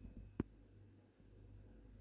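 Near silence with a few faint short clicks, the sharpest about half a second in.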